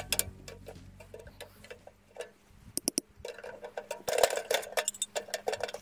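Sharp metal clicks and clinks as steel legs are fitted into a folding steel camp wood stove, with a cluster of quick clicks about halfway through and more clinks near the end.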